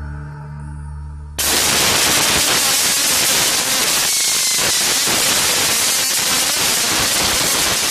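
Loud, even hiss of radio static from an analog VHF two-way radio, starting suddenly about a second and a half in.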